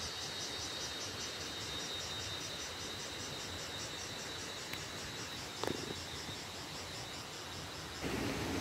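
Insects chirping in a rapid, even, high-pitched pulsing, with a brief falling sound about five and a half seconds in. Near the end the chirping stops and a louder, even hiss takes over.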